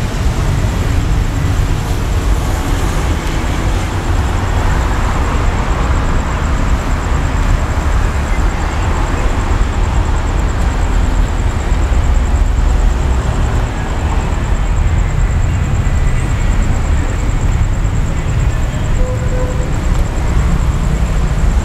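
Steady low rumble of a diesel railcar idling at a standstill, mixed with the hum of surrounding city traffic, with a thin steady high whine above it.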